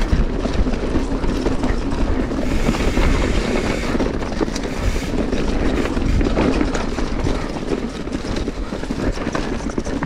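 Mountain bike riding fast down a dirt trail: tyres rolling over dirt and the bike clattering, a steady rattle full of small knocks.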